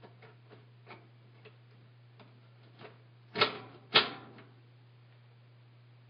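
A few light clicks, then two loud sharp clicks about half a second apart, from the washing machine's controls being worked while the lid is open; the machine does not start. A steady low hum runs underneath.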